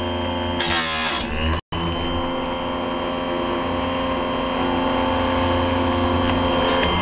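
Harbor Freight Chicago Electric chainsaw chain sharpener's grinding-wheel motor running steadily. About half a second in comes a brief, louder, hissing grind as the wheel touches a chain tooth. The sound drops out for an instant, then the motor runs on.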